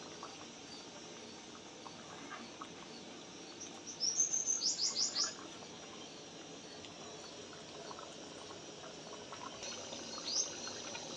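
A small bird chirping: a quick run of about six high, rising chirps about four seconds in, and a single chirp near the end.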